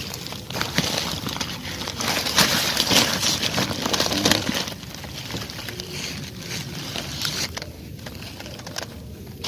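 Rustling and crackling of dry straw and leaves in a wire-mesh snake trap as it is handled, irregular and loudest in the first half, quieter from about five seconds in.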